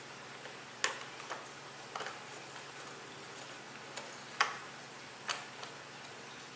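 Scattered sharp clicks and taps of a T10 Torx wrench working the screws on the plastic housing of an LED aquarium light, with the loudest click after about four seconds. The screws are being snugged down lightly.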